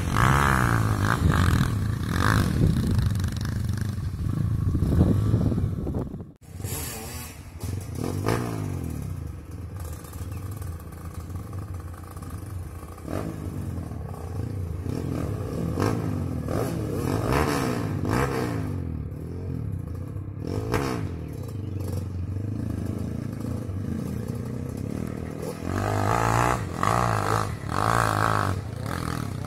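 Dirt bike engines revving hard up a steep dirt hill climb, pitch rising and falling repeatedly as the riders work the throttle. The sound briefly drops out about six seconds in, and is loudest near the start and near the end.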